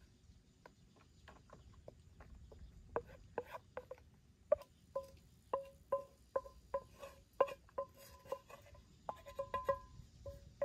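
A utensil knocking and scraping inside a small metal bowl while mixing. Each stroke is a short clink that rings briefly. The strokes are faint at first, then from about halfway come louder at about two a second, and quicker near the end.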